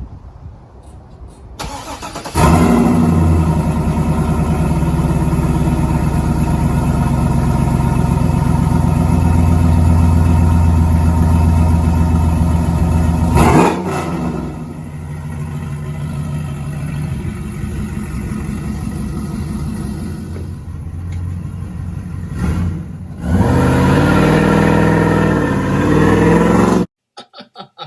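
Chevrolet Trailblazer SS's 6.0-litre LS2 V8 revved hard and held high for about eleven seconds, then eased to a lower steady run, then revved up again in several climbs near the end before cutting off suddenly. It is a burnout attempt that does little, which the owner blames on traction control he cannot switch off.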